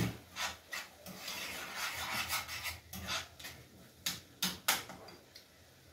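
A spoon scraping and stirring scrambled egg and tomato in a frying pan, a quick series of short scrapes with a few sharper taps about four seconds in, stopping about five seconds in.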